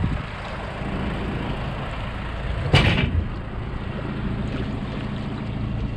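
Pickup truck's engine idling steadily. About three seconds in there is one sudden loud thud as the aluminium boat slides off its trailer into the water.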